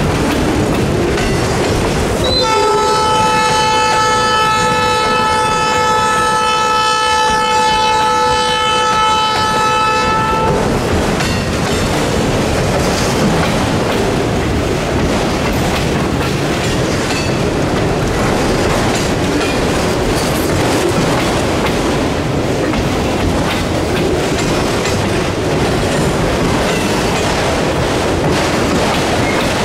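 A freight train of autorack cars rolling past close by, a steady rumble and clatter of wheels on rail. From about two seconds in, a locomotive horn sounds one long steady blast of about eight seconds, then cuts off while the cars roll on.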